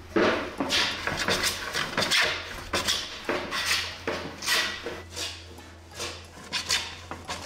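Small Japanese hand plane shaving the wooden rim of a stave barrel-drum shell: a quick run of short rasping strokes, about two a second.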